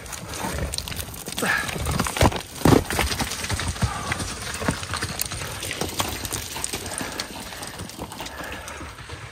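Loose rocks knocked free on a steep scree slope, clattering and tumbling downhill in a run of irregular knocks, the loudest about two to three seconds in, then smaller stones skittering.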